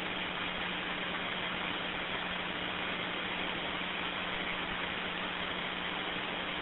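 Steady radio static hiss with a constant low hum, heard between transmissions on a radio channel.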